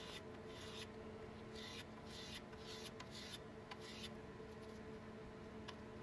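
Small brass screw cap rubbed back and forth on 220-grit sandpaper, a faint scratchy stroke about six times, stopping about four seconds in. It is being lapped flat to remove the machine marks.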